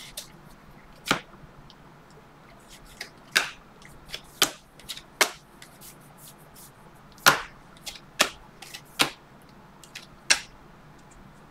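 Stack of Bowman baseball cards being flipped through by hand, each card snapping off the stack with a short, sharp click. There are about a dozen clicks at uneven spacing, some louder than others.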